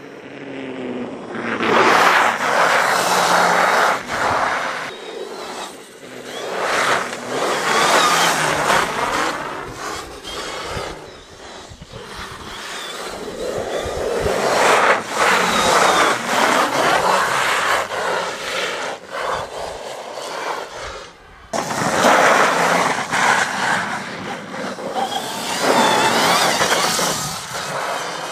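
Quantya electric dirt bike riding on snow: the motor and drive whine rising and falling in pitch with the throttle over the hiss of the tyres throwing snow, swelling and fading in several loud passes.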